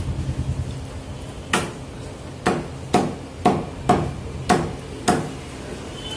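Meat cleaver chopping chicken into pieces on a chopping block: seven sharp chops, about two a second after the first.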